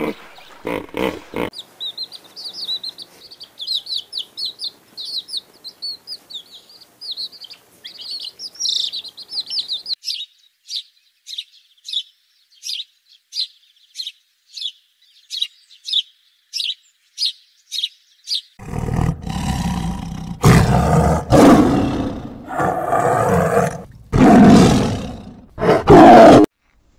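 A small bird chirps in fast high trills, then gives a run of single sharp chirps about twice a second. Near the end a large animal roars loudly about four times.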